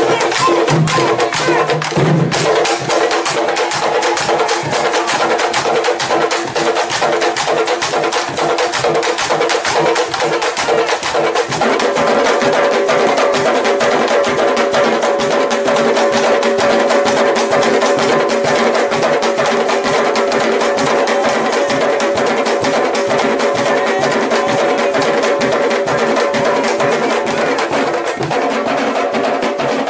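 A massed candombe drum line: many tambores beaten with a stick and bare hand in a dense, driving rhythm, with sharp stick cracks on the shells and heads. The mix of drum tones shifts about twelve seconds in.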